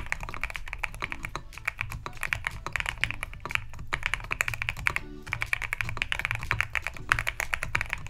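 Fast, continuous typing on a GMK67 keyboard kit with KTT Kang White linear switches and MSA profile keycaps, in its unmodded plastic case: a dense run of keystroke clacks.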